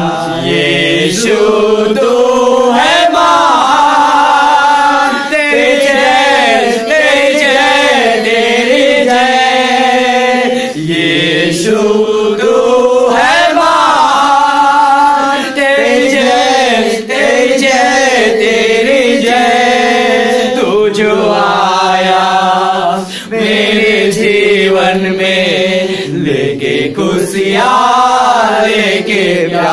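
A group of voices singing a Christian worship song together, with long held notes that rise and fall.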